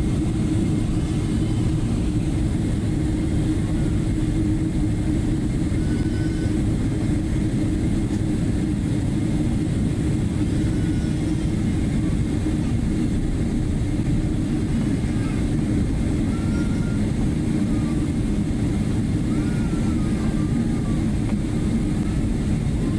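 Steady engine and airflow noise inside the cabin of an Air France Boeing 777-300ER, a constant low rumble and hiss that does not change.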